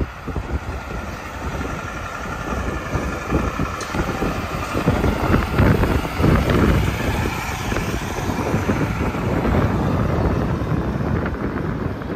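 Interstate highway traffic passing at speed, with a steady roar of tyres and engines. Wind buffets the microphone throughout.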